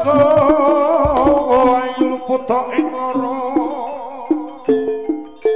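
Jaranan accompaniment music from a gamelan-style ensemble: struck metal pitched percussion plays a steady repeating pattern, with a few deep drum strokes. Over it, a wavering melodic line with strong vibrato runs for about the first half, then drops out, leaving the percussion.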